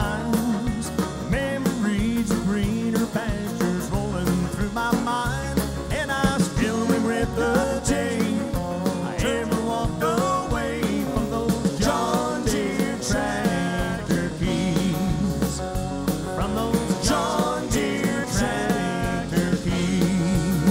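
Country band playing live, with acoustic guitar and a drum kit.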